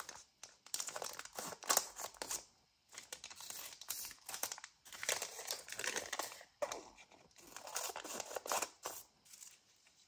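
Scissors cutting apart a thin clear plastic packaging bag, the plastic film crinkling as it is handled, in irregular bursts with short pauses.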